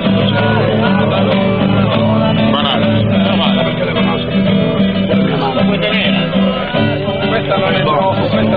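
Background music: a song with guitar and a singing voice over a steady bass line.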